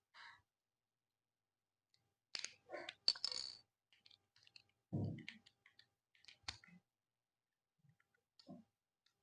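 Small plastic model-kit parts clicking and tapping as they are handled and snapped together, in scattered short clicks with a duller knock about halfway through.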